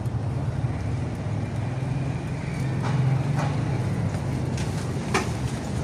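Street traffic: a steady low motor-vehicle engine rumble, with a few sharp clicks about three seconds and five seconds in.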